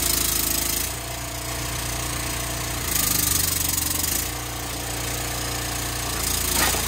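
Engine of a log splitter running steadily, growing louder twice for about a second at a time.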